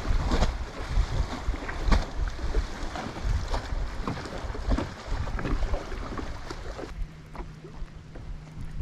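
Wind buffeting the microphone over water lapping against a small boat, with scattered light knocks. A steady low hum starts about seven seconds in.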